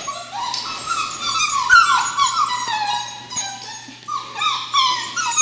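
Several seven-week-old puppies whining together, short high whines sliding down in pitch and overlapping one another. The whining shows the pups are unhappy at being in an unfamiliar room.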